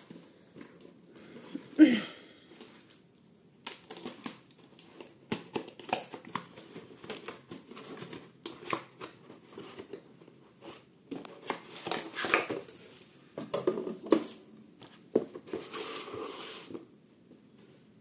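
Cardboard boxes and bubble-wrap packaging being opened and handled: irregular rustling, crinkling and scraping, with small knocks as black plastic ECU housings are set down on a wooden desk. A short, loud sound with a falling pitch comes about two seconds in.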